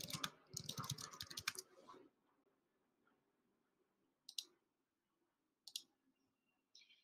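Typing on a computer keyboard: a quick run of keystrokes for about two seconds, then two single clicks about a second and a half apart.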